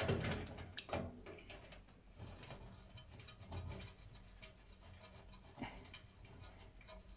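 Handling noises of repair work on a cooker's heating-element wiring: light clicks, knocks and rubs of a screwdriver and fingers on metal terminals and sheet-metal panel. They are a little louder in the first second, then sparse and faint.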